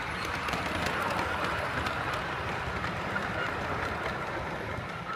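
Large-scale model steam train, a locomotive hauling coaches, running past close by on the track: a steady rumble of wheels on the rails with faint ticking.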